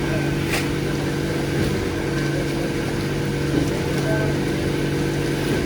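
A concrete truck's engine running steadily at a constant speed, with a few faint clicks over it.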